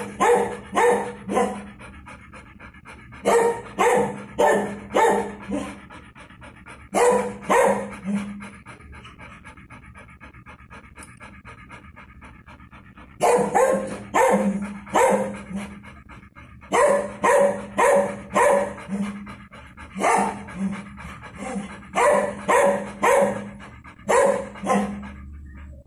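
A large dog panting hard and fast, in runs of quick breaths about three a second that stop and start, with a quieter pause around the middle. A steady low hum sits underneath.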